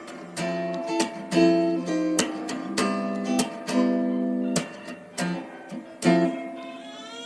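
Acoustic guitar music: strummed and plucked chords with a sharp attack every half second or so, and a brief sliding note near the end.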